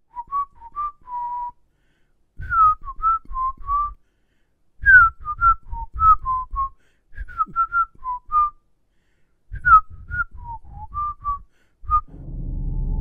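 A person whistling a lilting tune: short notes, several sliding down in pitch, in four phrases with brief pauses between them.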